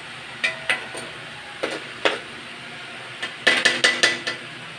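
Spatula knocking and scraping against a metal wok while stirring corned beef and potatoes: a few single clanks, then a quick run of about five about three and a half seconds in.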